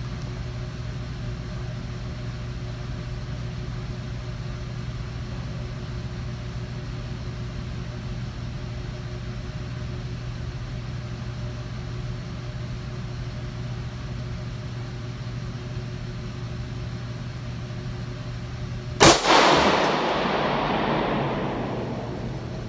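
A single shot from a Smith & Wesson .40-calibre semi-automatic pistol near the end, loud and sudden, echoing for a few seconds down the indoor range. Before it there is only a steady low hum.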